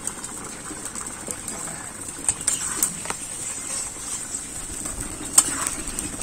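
A spatula stirring a simmering fish curry in a two-handled karai, with scattered sharp clicks and scrapes against the pan.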